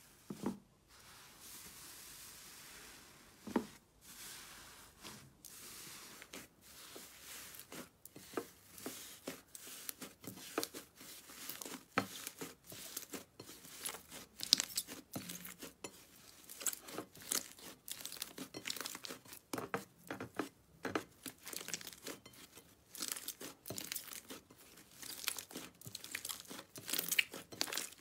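Hands stretching and tearing thick, dough-like slime apart, then squeezing and kneading slime, giving a dense run of short, sharp crackles and pops, several a second.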